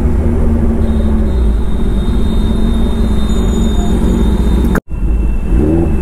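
Kawasaki ZX-10R's inline-four engine running through an Arrow aftermarket exhaust at low road speed. The sound cuts out for an instant a little before five seconds in, and a short rising rev follows near the end.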